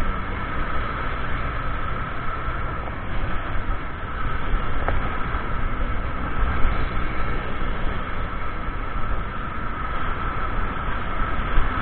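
Motorcycle riding in traffic: a steady mix of engine running and wind and road rumble on the microphone, with a thin steady whine above it.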